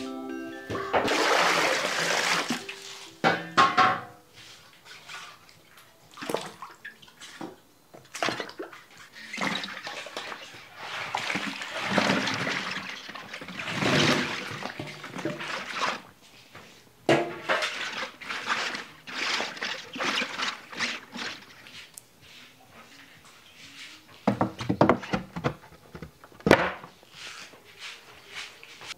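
Water pouring and splashing into a large cooking pot in several surges, with peeled bamboo shoots tipped in from a metal bowl.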